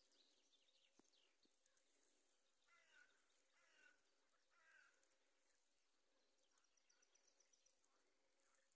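Near silence with faint wildlife: three short rattling animal calls around the middle, and faint high ticking trills a little later.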